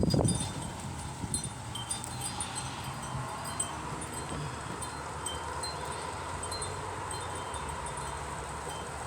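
Wind chimes tinkling irregularly in a dust-storm wind, over a steady rush of wind. A loud gust on the microphone dies away right at the start.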